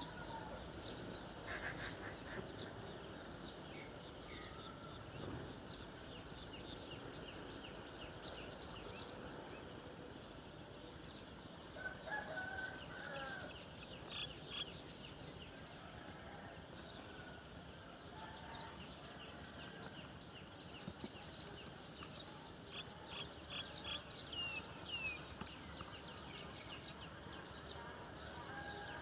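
Outdoor bird calls: bunches of short high chirps and trills, with a few lower calls mixed in, over a steady background hiss.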